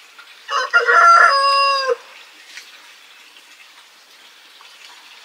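A rooster crowing once: a call about a second and a half long, broken at the start, then held on one slightly falling note and cut off sharply.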